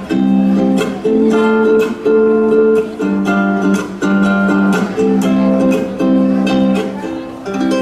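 Hula music: ukulele and acoustic guitar strumming chords in a steady rhythm, each strum a sharp attack that rings on as a held chord.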